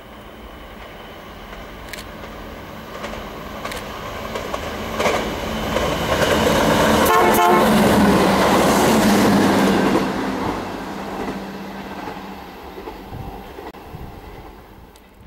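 MAN 2000 diesel-hydraulic multiple unit passing by. Its engines' steady drone grows as it approaches, is loudest about seven to ten seconds in with a quick run of wheel clicks over the rails, then fades as it moves away.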